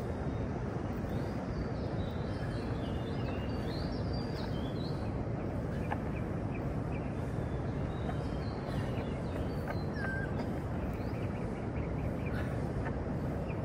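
Outdoor ambience of birds chirping on and off, with many short calls in the first few seconds and a few scattered ones later, over a steady low rumble.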